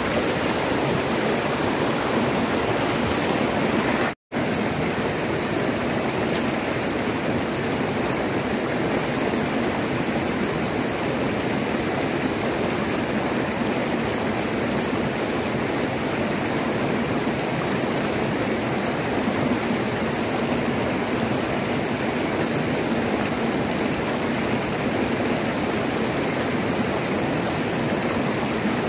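Shallow river rapids rushing over rocks: a steady, loud rush of water, cut off to silence for a split second about four seconds in.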